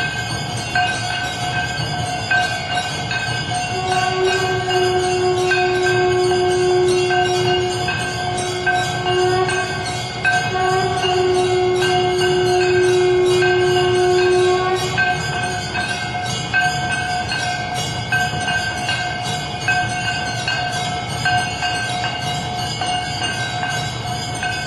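Temple bells ringing rapidly and continuously during an aarti, in a dense clanging with a steady ringing tone over it. A long, strong blown note sounds twice in the middle, each time held for several seconds.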